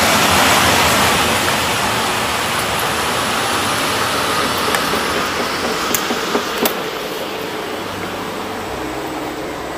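EN57AL electric multiple-unit commuter train pulling into a station: a steady rushing hiss of rolling and traction noise, loudest at the start and slowly fading as it slows, with a few short clicks and clunks about five to seven seconds in.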